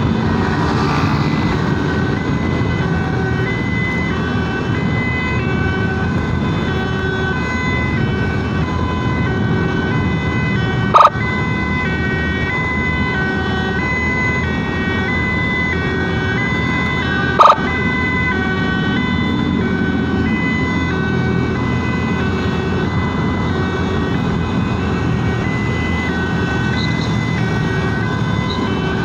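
Emergency vehicle siren sounding a steady two-tone high-low wail over the rumble of traffic and wind. Twice, about a third and about two-thirds of the way through, a short loud knock cuts in.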